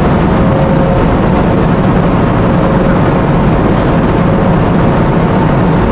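Steady, loud rumble of a container ship's machinery, with faint steady tones riding over it.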